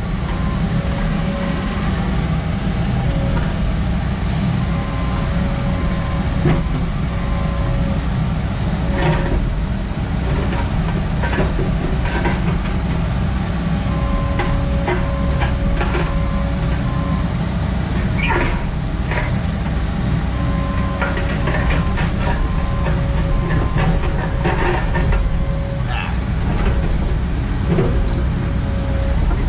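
Semi truck running down the road, heard from the cab: a steady, loud engine and road rumble with a constant hum over it and scattered clicks and rattles.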